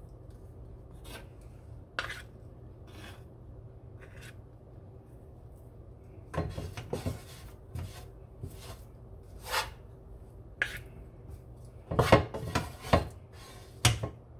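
Wooden spatula scraping and knocking as thick halaya is worked onto a banana-leaf-lined plate and scraped from the pan: irregular rubs and sharp taps, thickest about twelve seconds in, over a faint steady hum.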